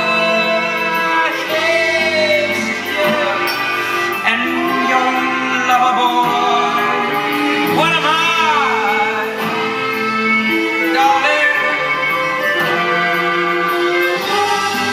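Live slow song: sustained singing without clear words over soft instrumental accompaniment, with a long wavering held note about halfway through.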